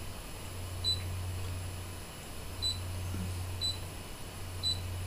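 Brother ScanNCut DX SDX1200 touchscreen beeping as a stylus taps its buttons: four short, identical high beeps, spaced about a second apart, over a steady low hum.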